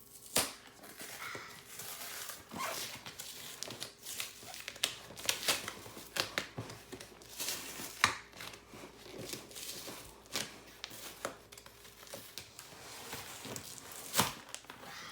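Packaging being torn open and crumpled by hand: irregular rips, crinkles and sharp clicks.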